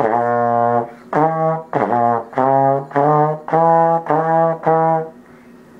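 Trombone played close to the bell: a run of separate held notes on two or three low pitches, some sliding into pitch, stopping about five seconds in.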